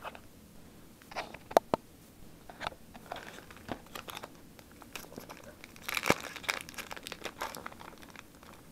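Foil wrapper of a Pokémon booster pack crinkling and crackling in irregular bursts as it is handled and pulled at to tear it open, with a busier stretch of rustling about six seconds in.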